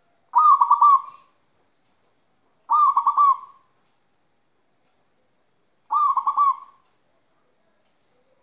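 Zebra dove (perkutut), a local bird in moult, cooing: three short phrases about two and a half to three seconds apart, each a quick run of rolling notes.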